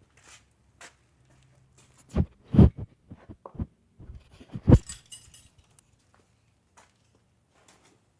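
Scrap metal being handled: several heavy thumps, the loudest about two and a half and nearly five seconds in, with light clinks and knocks between them.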